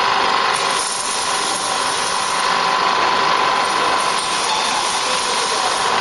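Industrial machinery running steadily: a dense, continuous mechanical noise with a steady whine.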